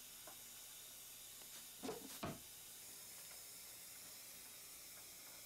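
Near silence: a steady faint hiss of room tone, with two brief faint sounds about two seconds in.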